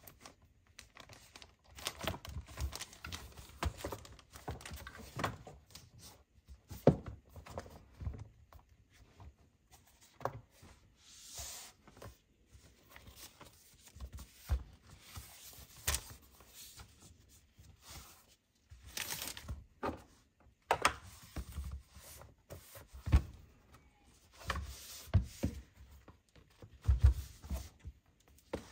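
Unboxing handling sounds: packaging being opened, with short bouts of tearing and crinkling among many scattered taps, clicks and knocks as items are handled and set down.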